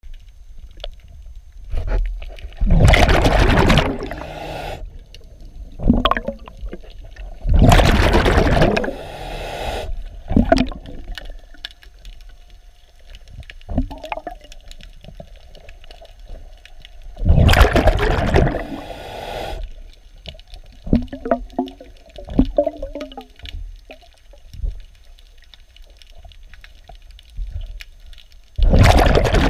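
Diver's regulator heard underwater: four loud rushes of exhaled bubbles, several seconds apart. In between, small scraping clicks as a hand pad scrubs the propeller.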